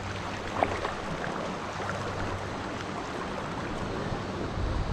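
Small sea waves washing and lapping against a rocky shoreline, heard as a steady wash of water noise. There is a single sharp click about half a second in, and wind starts buffeting the microphone right at the end.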